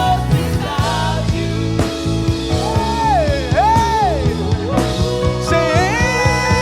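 Live gospel worship music: a voice sings long sliding, wordless runs over a band with bass, keyboard and a steady drum beat.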